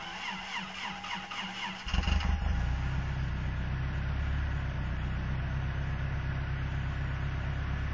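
Pickup truck engine cold-started in freezing weather: the starter cranks for about two seconds, then the engine catches and settles into a steady idle, with no throw-out bearing squeal.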